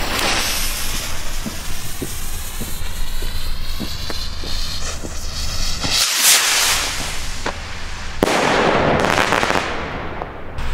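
Weco firework rocket's fuse fizzing and sparking, with scattered sharp pops, then a loud hissing whoosh about six seconds in as the rocket launches. Another loud hiss follows from about eight seconds.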